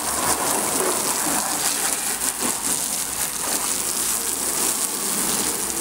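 Water spray from a hose wand hitting a pickup truck's body panels and the wet pavement, a steady, even spray.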